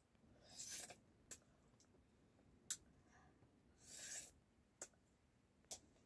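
A person eating by hand and chewing, making a few sharp mouth clicks and smacks. Two short breathy hisses come, one about half a second in and one around four seconds.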